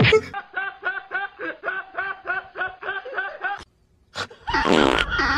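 Rhythmic laughing: about a dozen short 'ha' syllables at roughly four a second. It stops abruptly, and after a short silence a loud drawn-out cry begins near the end.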